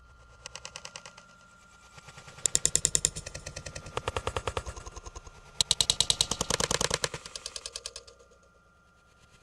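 Rapid, even rattling clatter at about ten knocks a second, in bursts: a short faint one near the start, then louder bursts about two and four seconds in, and the loudest, longest one from about five and a half seconds to eight seconds in.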